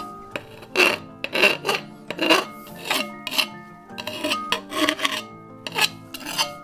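Hand file rasping over the corner of a bent aluminium plate held in a vise, in a dozen or so uneven strokes, rounding the corner off.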